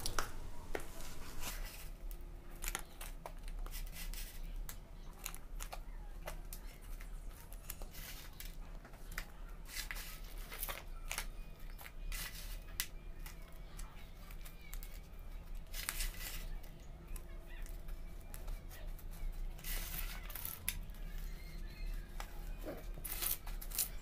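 Hands scooping a gritty mix of river sand and cocopeat and pressing it into a thin plastic tub: irregular scraping, crunching and rustling, over a faint steady low hum.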